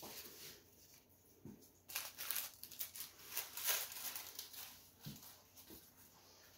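Faint, irregular rustling and handling noises of supplies being gathered, with a scattering of short scrapes and knocks.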